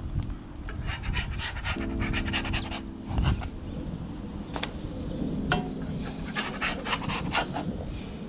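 Metal spatula scraping across a steel flat-top griddle and sliding under tortillas and egg, in two runs of quick rasping strokes, with lofi background music.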